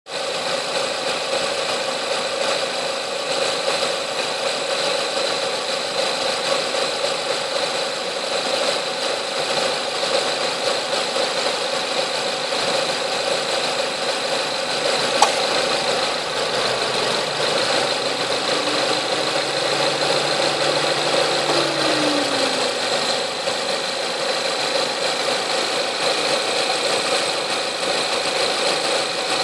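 Renault Mégane III running steadily, with several constant tones, including an extraneous noise whose cause is not yet known. A single sharp click comes about halfway through.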